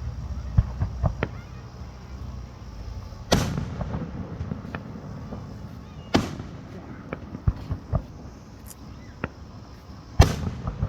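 Aerial fireworks bursting: three loud bangs about three seconds apart, each with an echoing rumble, and smaller sharp pops in between.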